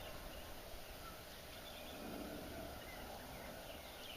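Faint outdoor background, with a few soft, scattered bird chirps.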